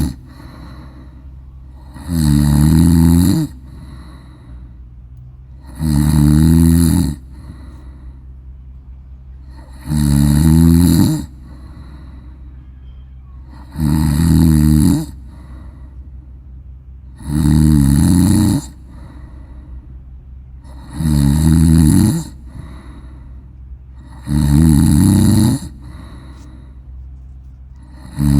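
A chicken snoring: a rasping snore about every four seconds, each lasting about a second.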